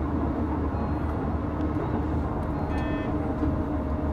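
Keisei 3700 series electric train running at speed, heard from inside the front cab: a steady rumble of wheels on rail. A brief high ringing tone sounds about three seconds in.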